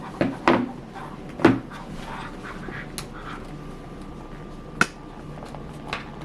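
Handling noises as a leather shift boot is worked into its plastic trim piece: a few scattered sharp clicks and creaks of plastic and leather.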